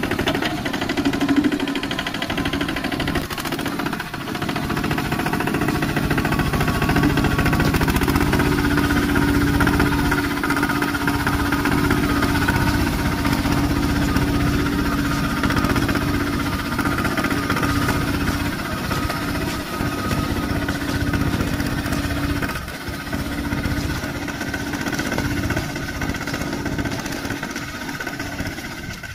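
Two-wheel walking tractor's single-cylinder diesel engine running steadily under load as it drags its tiller through a flooded rice paddy, with a fast, even chugging.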